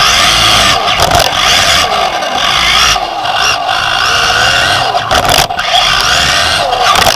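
Onboard sound of a Team Associated B5M 1/10 2WD electric off-road buggy at racing speed: the whine of its Nosram Comet HD brushless motor and drivetrain rises and falls in pitch with the throttle. Tyre, dirt and chassis noise runs underneath, with a few brief cuts.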